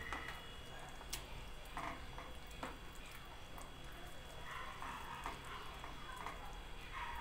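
Spatula stirring thick chicken gizzard stew in a frying pan: faint, soft scraping and squelching, with a few light clicks of the utensil against the pan.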